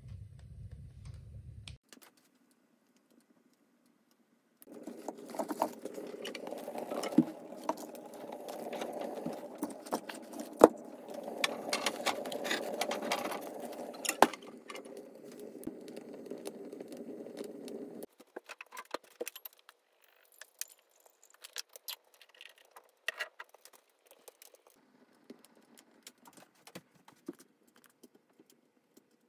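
Cast-iron wood stove being loaded: metallic clinks of the door and handle and knocks of split firewood, over the crackle of the fire. The knocking is densest in the first half; only scattered crackles and clicks follow.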